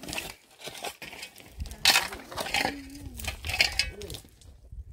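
Kitchen clatter: metal utensils scraping and clinking against cookware in a run of short, sharp scrapes and knocks, the loudest about two seconds in, with a voice heard briefly.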